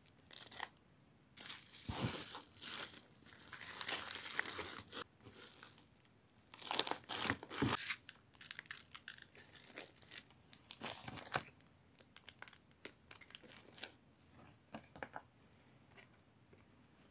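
Packing sounds: plastic and paper packaging crinkling and tearing in irregular bursts, with short clicks and taps between stretches of quiet.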